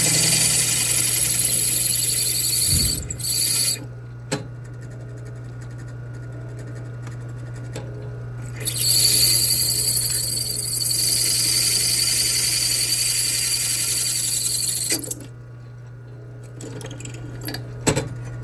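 Drill press running with a steady low hum while a twist drill bit cuts through fully heat-treated knife-blade steel, at a spot softened beforehand by friction heating. There is a loud high-pitched cutting noise in two spells, up to about four seconds in and again from about nine to fifteen seconds, with quieter motor hum between. A few clicks come near the end as the bit is raised, and the hum then stops.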